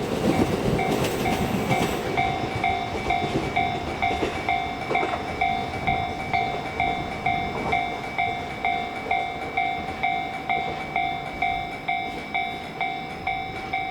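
Level crossing warning bell ringing steadily at about two strikes a second. A passing train rumbles at the start and dies away within about two seconds. The bell keeps ringing after it, so the crossing stays closed.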